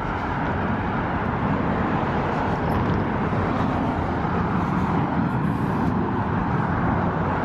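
Steady road traffic noise: cars driving past on the road beside the sidewalk, a continuous rush with no single distinct event.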